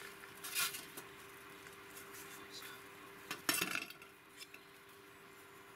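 Camping cook pot lid lifted off the pot and set down on a metal table top: two sharp metallic clinks, a lighter one about half a second in and a louder one about three and a half seconds in.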